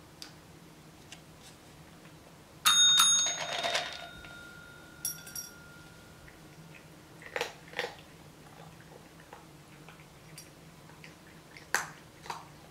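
A desk call bell is struck once, about two and a half seconds in, with a short clatter as it is hit, and its ringing fades over about four seconds. Later there are a few soft clicks as the cat eats dry kibble from a ceramic bowl.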